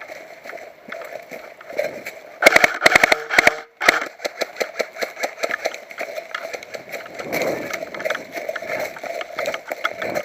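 Footsteps crunching through dry leaves and undergrowth, with a quick run of loud sharp knocks about two and a half seconds in.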